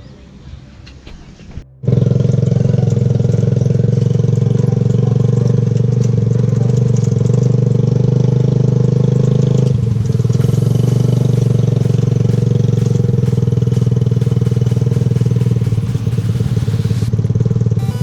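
Engine of a three-wheeled motorcycle taxi running steadily, a loud low drone that cuts in suddenly about two seconds in.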